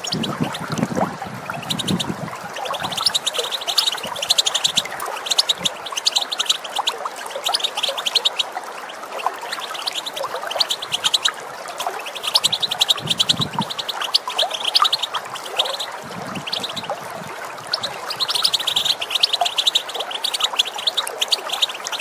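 European goldfinch giving its rapid chattering calls in repeated bursts of fast, high notes, each burst lasting a second or so. Running water rushes steadily underneath.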